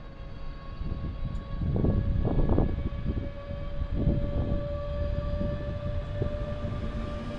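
Train wheels squealing against the rails: a steady high squeal held on one pitch over the low rumble of the moving train, with a few louder thumps around two and a half seconds in and again at about four seconds.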